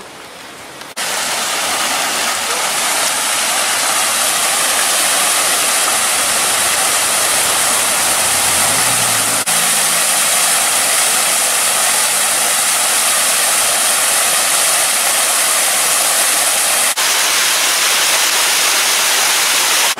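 Water cascading over the stone ledges of a landscaped waterfall into a pool: a steady, loud rush that starts suddenly about a second in, with two brief dips.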